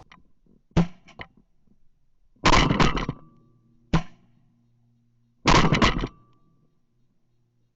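Four loud shotgun shots over about five seconds, the second and fourth each followed by a short rattle of further cracks, with a few faint knocks between.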